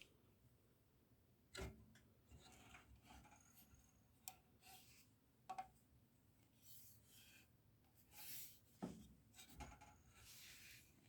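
Faint handling sounds: rustling and rubbing, with a few light clicks and knocks as objects are moved about.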